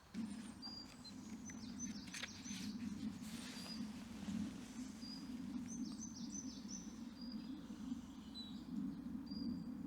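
Woodland birds chirping, short high falling notes in clusters, over a steady low hum of background noise.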